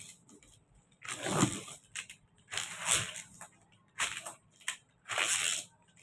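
Thin metallic foil paper crinkling and rustling as it is handled and folded, in four separate bursts.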